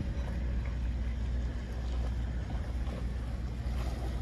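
Boat engine running with a steady low rumble, over water noise and wind on the microphone.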